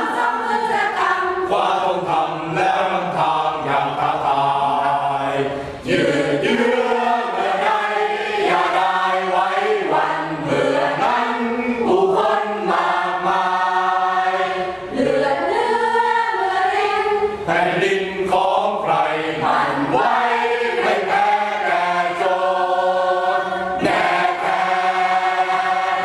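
Mixed group of men and women singing together as a choir, with a few short breaks between phrases.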